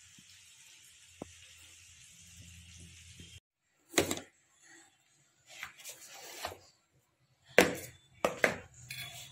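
Faint sizzling of luchi frying in hot oil in a wok, then a cut to plastic lunch-box containers knocking and clacking as they are handled and packed. The loudest knock comes near the end.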